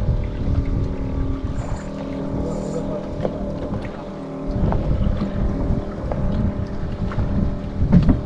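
Boat engine running steadily, with wind on the microphone and a few short knocks of gear being handled aboard, the loudest near the end.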